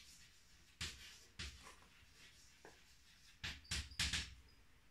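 Chalk writing on a blackboard: a series of short, sharp chalk taps and scrapes as letters are written, several quick strokes clustering in the second half, the loudest around four seconds in.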